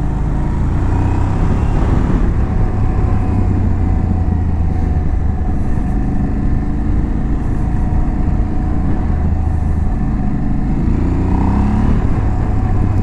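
Aprilia Tuareg 660's parallel-twin engine running under way, with a steady rush of wind. The engine note shifts in pitch a few times, rising briefly near the end.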